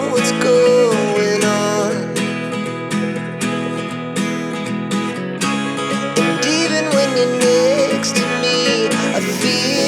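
Background music: strummed acoustic guitar with a melody line gliding up and down over it.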